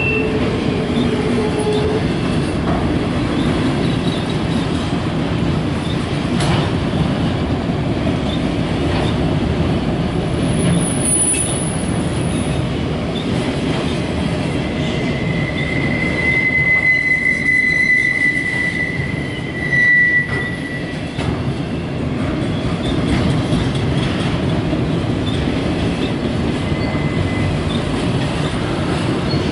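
Loaded autorack freight cars rolling past with a steady rumble of steel wheels on rail. Thin, high wheel squeals rise over it now and then, the longest lasting several seconds past the middle.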